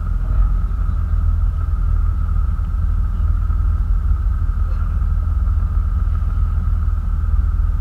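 Motorboat engine running at low speed: a steady low rumble with a faint steady whine above it, picked up by a camera mounted on the boat's stern.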